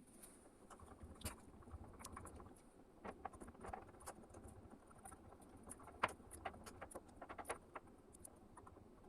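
Irregular light clicks and taps of small hard objects being handled, a few a second, with a sharper tap about six seconds in, over a faint low hum.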